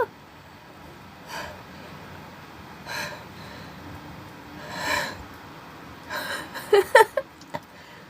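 A woman's gasping breaths as a sneeze builds: three soft breathy gasps a second and a half to two seconds apart, then a louder cluster of short, sharp gasps near the end.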